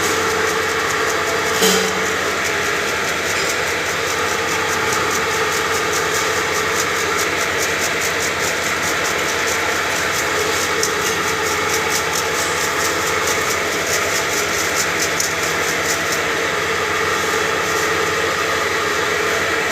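Hammer-mill pulverizer running steadily, a continuous mechanical drone. It knocks once shortly after the start, and a fast, even rattle comes in through the middle stretch.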